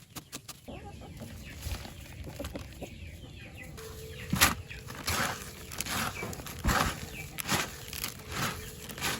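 Chickens clucking. From about halfway through there is a series of sharp, noisy strokes, roughly one a second, like wings flapping.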